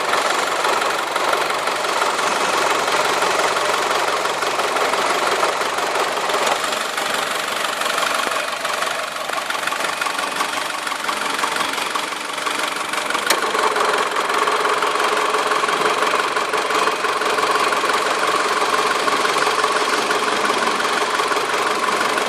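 2008 Mitsubishi Lancer GTS running with a strange noise from its A/C compressor: a steady, noisy whine. About halfway through, a second, lower tone joins it.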